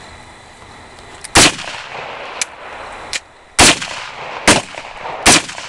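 Gunfire at close range from a rifle shot beside the microphone and a pistol fired nearby: four loud, sharp shots spread over about four seconds, the first about a second and a half in, with two fainter cracks between them.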